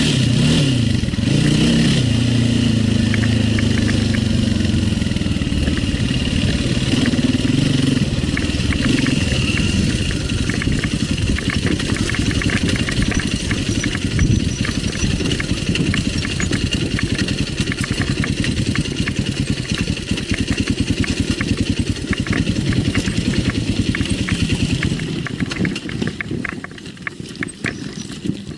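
Enduro dirt bike engine revving, its pitch rising and falling, then running at lower revs with a rapid, even beat. It drops off near the end.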